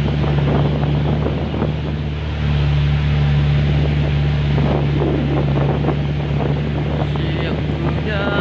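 Pickup truck engine running steadily in first gear under a heavy load of about two tons, climbing a steep, rough dirt slope. A voice sings briefly near the end.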